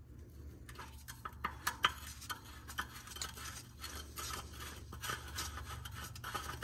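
K&N oil filter being spun on by hand onto its threaded mount on a C6 Corvette's oil pan: light, irregular scraping and clicking of a gloved hand turning the metal filter can.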